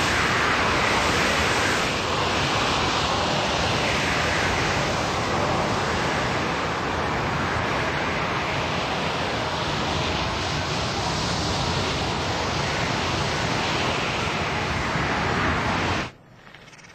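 Blizzard wind, a loud, steady rushing noise with no rhythm or tone, that cuts off abruptly near the end.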